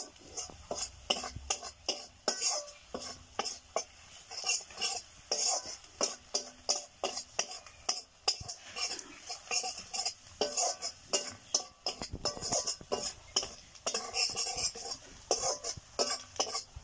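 Wooden spatula stirring onions and chillies in an iron kadai, scraping and knocking against the pan in quick repeated strokes, about two to three a second.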